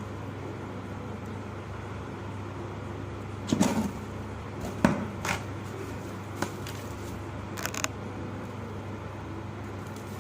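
A few short crunches of dry clumps being crumbled by hand, one cluster near the middle and single ones after it, over a steady low hum.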